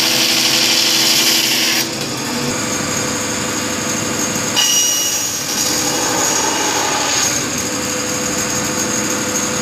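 Bandsaw running and cutting through wood, the bright cutting hiss dropping away about two seconds in as the blade runs free. About halfway through comes a short metallic ping, the blade striking a tack or nail buried in the wood.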